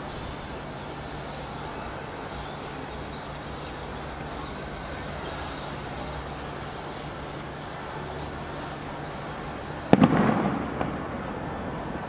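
Steady background hiss, then about ten seconds in a single sharp bang that echoes and dies away over about a second, followed by a smaller pop.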